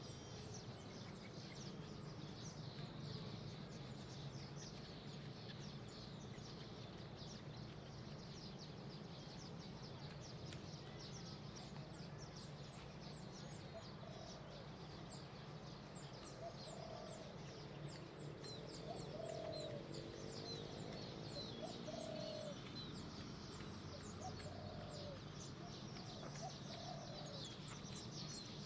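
Outdoor garden ambience of many small birds chirping over a steady low hum. In the second half come a series of short, lower bird calls, with one longer call among them.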